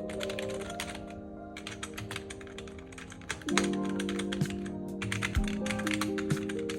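Keys of a TopMate mechanical keyboard being typed on fast, an uneven run of clacks with a brief pause about a second in, over background music.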